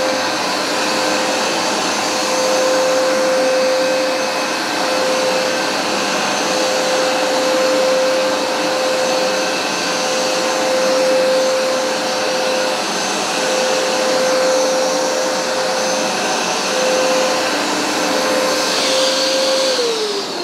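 Hoover SmartWash carpet cleaner running, its motor giving a steady whine over a rushing suction noise, then winding down in pitch near the end.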